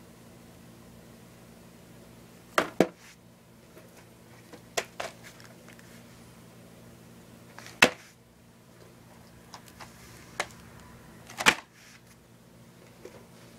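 Plastic DVD cases being handled: scattered sharp clicks and taps, several in quick pairs, as cases knock together and are set down on a stack. A faint steady low hum runs underneath.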